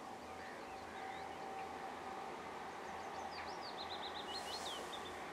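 A songbird singing one short, fast phrase of high notes and quick falling sweeps about three seconds in, over a faint steady outdoor background rumble.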